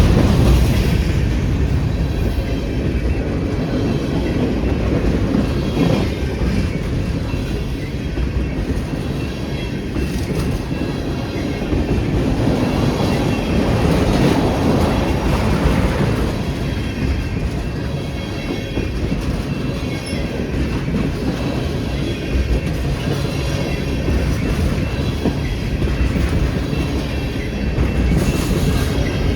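Freight train cars rolling past: a steady rumble of steel wheels on the rails with clickety-clack over the joints and a faint, thin wheel squeal.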